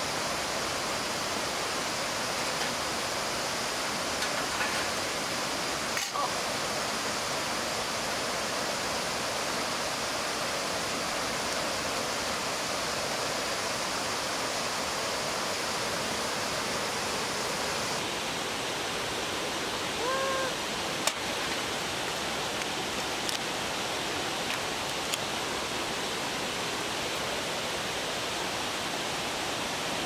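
Steady rush of a mountain valley stream, with a few light clicks and one brief pitched sound about two-thirds of the way through.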